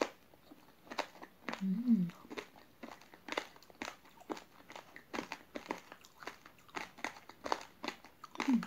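Close-up chewing of raw uncooked rice grains together with chewy jelly: many irregular crisp crunches as the hard grains break between the teeth. About two seconds in there is a short low hum from the eater.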